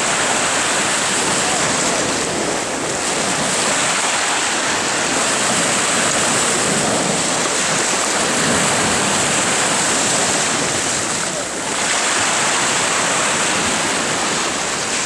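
Sea surf breaking and washing over a rocky shore: a steady, loud rush of white water, easing briefly about eleven seconds in.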